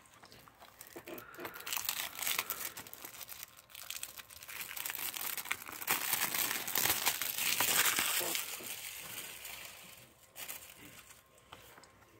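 Plastic shrink wrap being torn and peeled off a Blu-ray case, crinkling and crackling. It builds to its loudest a little past the middle and dies away near the end, followed by a few light clicks.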